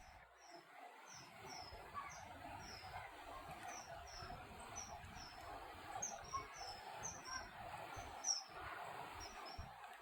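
A small bird calling: a steady series of short, high-pitched chirps, about two a second, over a low steady background hiss.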